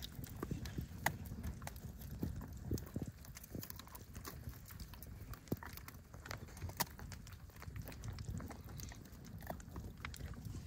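Eight-month-old German Shepherd chewing on a small wooden stick: faint, irregular cracks and crunches as her teeth work the wood.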